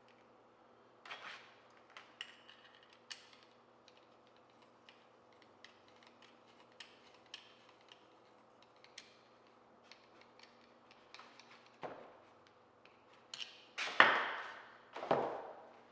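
Small metal clicks and ticks of hand tools working on a bicycle pedal as its end cap is threaded in and tightened, then two louder metallic clanks that ring briefly near the end.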